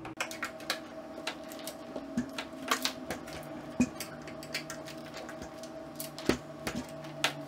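A screwdriver clicking and scraping against a screw and the metal of a Mini-ITX computer case, a run of light, irregular taps and ticks, with a few louder knocks near the end as the case is tipped up. A faint steady hum runs underneath.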